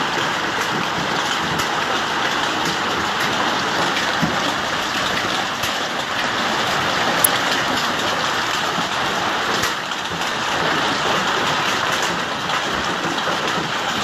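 Hail and rain falling steadily on the ground, a dense, even hiss with a few sharper clicks of stones striking.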